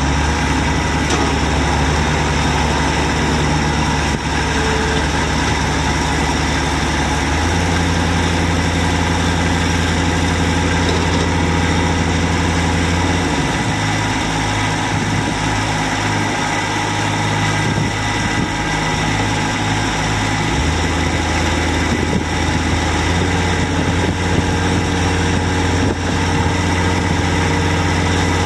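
22 HP Kubota diesel engine of a compact loader-backhoe tractor running steadily. Its engine speed steps up about seven seconds in, drops back around the middle and rises again near the end.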